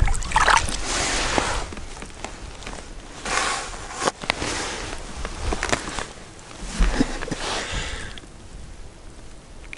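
Rustling and scuffing of winter clothing and gloves with crunching snow, in several swishes and a few sharp clicks and thumps, as a roach is lifted out of an ice hole and handled.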